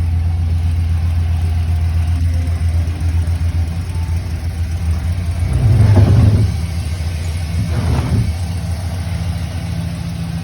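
2007 Chevy Silverado engine idling steadily on its first start after a transmission rebuild, with the engine brought up louder about six seconds in and briefly again near eight seconds. The owner says a small exhaust manifold leak is still there.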